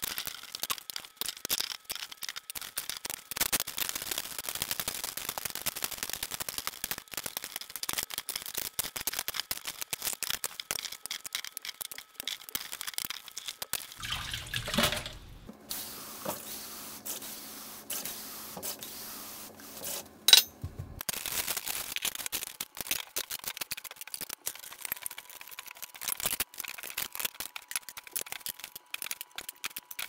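Dishes being washed by hand in a stainless-steel sink: water sloshing and splashing, with dishes, glasses and cutlery clinking in many small clicks. About halfway through there is a short quieter stretch with a steady hum, broken by one sharp, loud clack, before the clinking and splashing start again.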